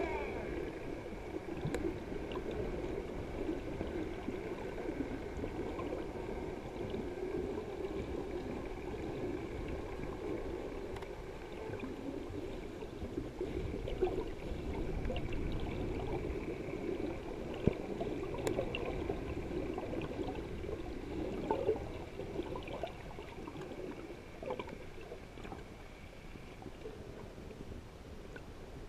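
Muffled underwater sound from a camera held below the surface: a steady rushing, gurgling wash of water with a faint constant whine above it and a few small clicks.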